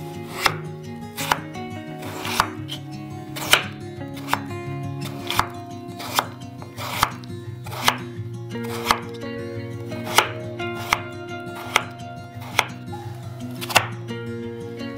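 Chef's knife slicing peeled raw potato on a bamboo cutting board: a sharp knock as the blade hits the board with each cut, about one a second, over soft background music.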